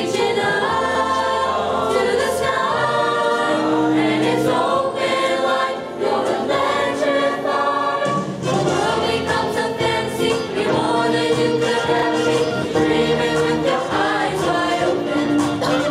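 Mixed choir of teenage boys and girls singing.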